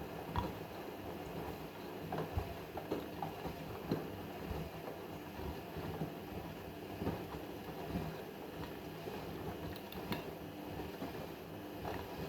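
Washing machine running a wash cycle: a steady motor hum under the drum, with irregular knocks and thumps as the load tumbles.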